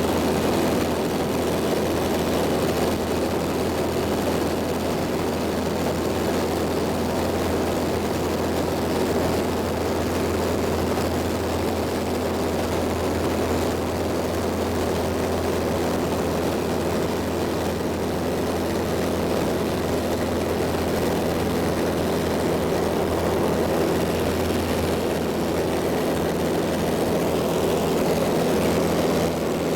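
Light propeller airplane's engine and propeller droning steadily in cruise flight, heard from inside the cabin, with a constant low hum under a wash of noise.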